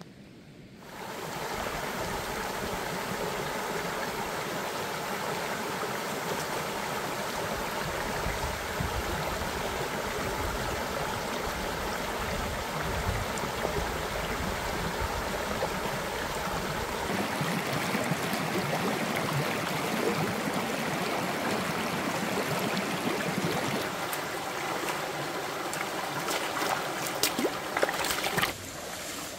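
Shallow rocky stream rushing over stones, a steady loud flow that starts about a second in. Near the end, close splashes as boots wade through the water.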